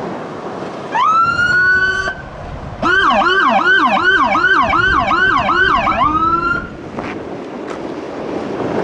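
Electronic emergency siren on a Ford pickup fire command vehicle: a short wail rising into a held note, then a fast yelp for about three seconds at about three sweeps a second, ending on a rising held note. Traffic noise underneath.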